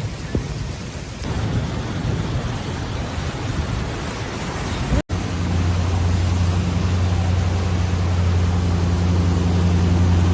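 Heavy rain making a steady hiss. About five seconds in the sound cuts abruptly, and a strong, steady low hum joins the rain noise.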